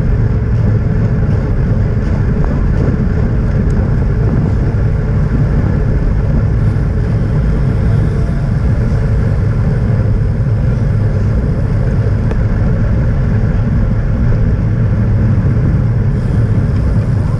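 Steady wind rush and road noise from a camera on a moving road bicycle, a low, even rumble with no breaks.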